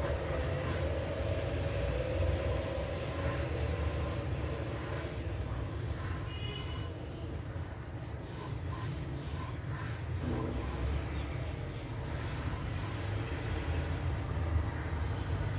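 Graphite pencil scratching over drawing paper in sketching strokes, a steady rubbing sound, over a low steady background rumble.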